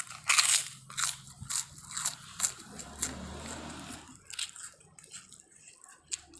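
A loud crunch about half a second in as a person bites into a crisp white cracker, followed by crunchy chewing for a few seconds.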